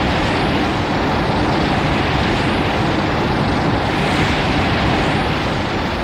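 Designed monster sound effect for the G-Cell-awakened Eva-01: a long, harsh, steady rush of noise over a deep rumble, easing off slightly near the end.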